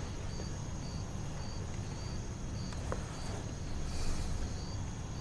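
A cricket chirping steadily, a short high chirp about every two-thirds of a second, over a low steady rumble of night ambience.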